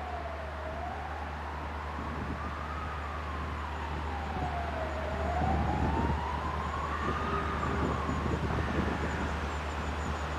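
An emergency-vehicle siren wailing slowly up and down. Under it the low diesel rumble of the approaching DR1AC diesel multiple unit grows louder about halfway through.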